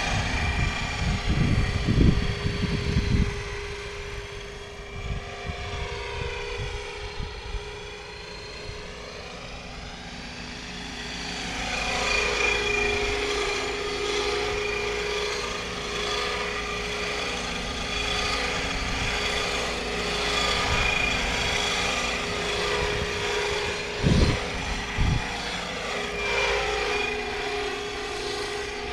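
Scale RC MD 520 helicopter flying, its Aerosound module playing a steady turbine whine over the rotor noise; the sound sweeps as the model moves about. A few low thumps come about two seconds in and again near the end.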